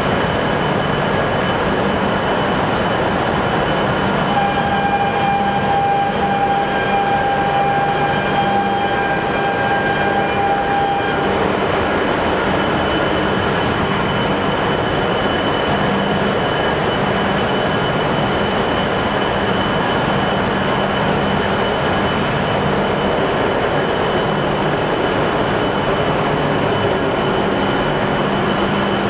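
Train running, with continuous steady rail and running noise. A steady whine with overtones is heard from about four seconds in until about eleven seconds in.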